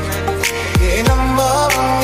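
Background song with a steady beat: deep bass drum hits that fall in pitch about once a second, under a melody.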